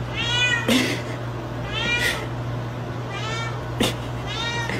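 Domestic cat meowing four times, each meow short and arching up then down in pitch, about a second and a half apart. Two sharp clicks fall between the meows, over a steady low hum.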